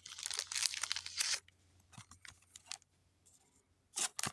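Foil booster pack wrapper and trading cards being handled: a rustle for about a second and a half, then scattered light clicks and two short rustles near the end.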